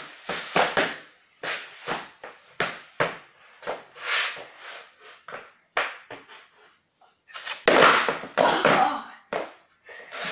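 Wheelless skateboard deck (carpetboard) knocking and slapping on a laminate floor as flip tricks are tried, a string of sharp separate clacks with a longer scraping slide of the board about three quarters of the way through.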